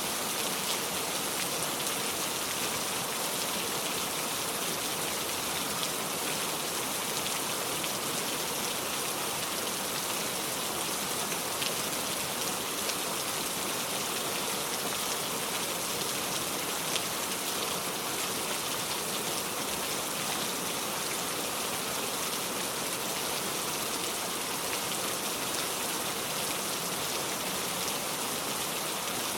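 Heavy rain falling steadily, a dense even hiss with scattered faint drop ticks.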